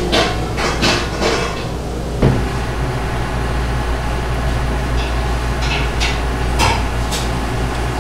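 A steady low machine hum, with sharp clinks and knocks of kitchenware clattering in the first two seconds and a few more about five to seven seconds in.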